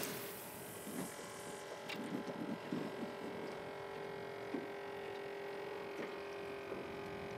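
A steady electric hum, like a small motor running, with a brief hiss at the very start and a few light knocks in the first few seconds.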